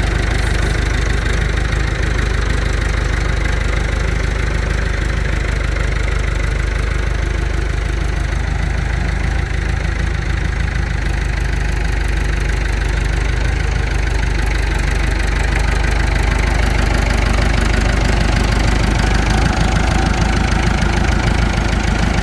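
Kubota U55-4 excavator's diesel engine running steadily.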